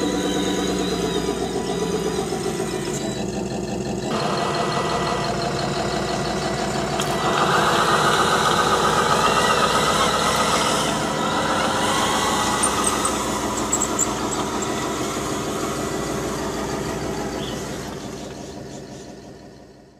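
Simulated diesel truck engine sound for 1/10-scale RC trucks, running steadily and louder for a few seconds around the middle, then fading out near the end.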